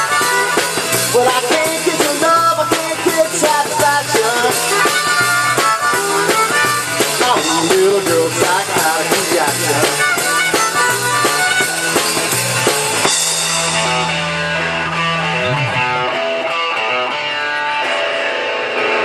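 Live rock band playing loudly: electric guitars, bass, drum kit and a harmonica blown into the vocal mic. About thirteen seconds in, the busy playing stops on a held low note, then thins to sustained ringing tones.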